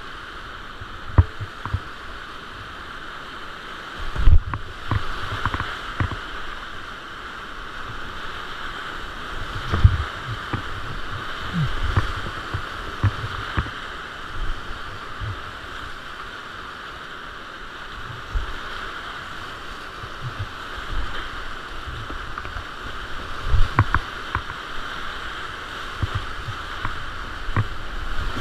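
Whitewater rapids rushing steadily, heard from a kayak through a GoPro camera, with irregular low knocks and splashes against the boat; the loudest knock comes about four seconds in.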